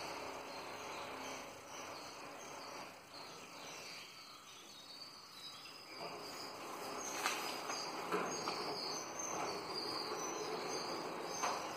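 Quiet background ambience with faint, high-pitched chirping scattered throughout, and a couple of light clicks in the second half.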